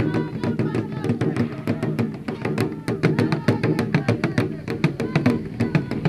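Music with plucked guitar and percussion.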